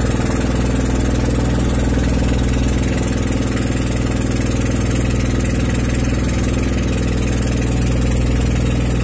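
Boat's inboard engine running steadily at a constant speed, driving the boat along the river.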